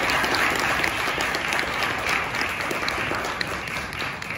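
Audience applauding, a dense patter of hand claps that eases off near the end.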